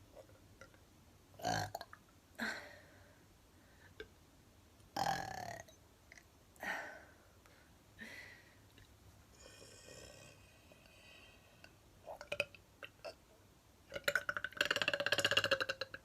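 A woman burping: a string of short belches a second or two apart, then one long, loud, rough belch near the end.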